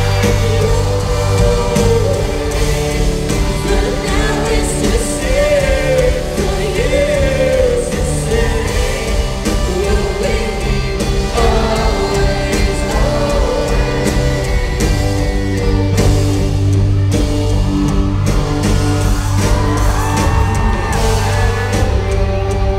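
Live rock band playing with singing: a wavering sung melody over sustained bass notes and steady drums.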